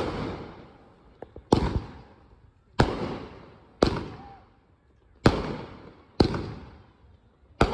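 Fireworks bursting one after another, a sharp bang about every second, seven in all, each trailing off in a fading rumble.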